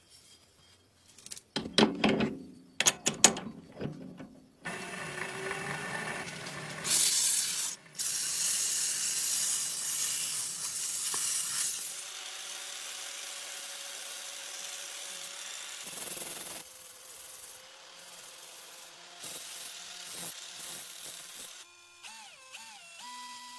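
Workshop restoration noises: a burst of sharp knocks and clatters, then several seconds of loud rubbing or scraping that settles into a quieter steady rasp, with a few short squeaky tones near the end.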